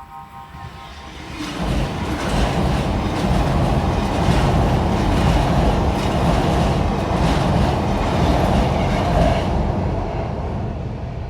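A train passing close by with wheels clattering on the rails. It swells up about two seconds in, holds, and fades away near the end.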